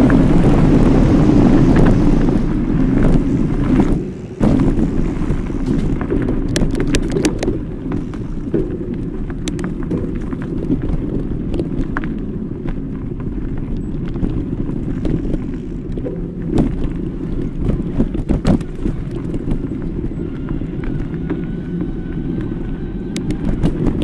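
Specialized Turbo Kenevo SL electric mountain bike ridden along a dirt forest trail: steady wind rumble on the bike-mounted camera's microphone with tyre noise, heaviest in the first few seconds, and scattered sharp clicks and knocks from the bike rattling over the rough ground.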